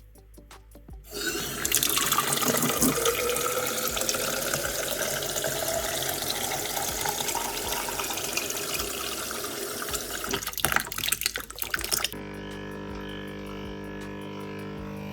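Tap water running into a container, with a pitch in the rush that rises steadily as the container fills. The flow stops about twelve seconds in after a few splashes and knocks.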